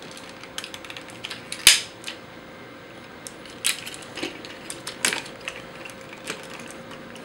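Parts of a Bandai Soul of Chogokin GoldyMarg toy robot figure clicking and clacking as hands press and fold them together during transformation, with one sharp snap a little under two seconds in and a few smaller clacks after. The joints are being snapped together into robot mode.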